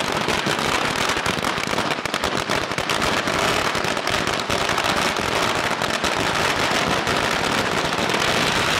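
Firecrackers bursting on the road in rapid, unbroken succession: a dense, steady crackle of many small bangs.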